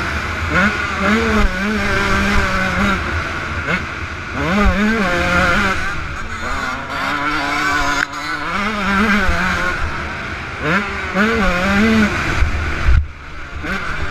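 Yamaha YZ125 two-stroke motocross engine revving hard, its pitch climbing and dropping again and again as the rider works the throttle and gears. The engine is mixed with wind rush on the helmet camera. About a second before the end, the throttle is chopped and the sound drops away briefly at the foot of a jump.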